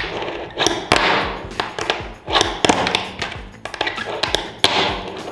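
Andoots fingerboard being popped and landed on a tabletop: a quick run of sharp taps and clacks as the deck's tail snaps down and the wheels hit the table.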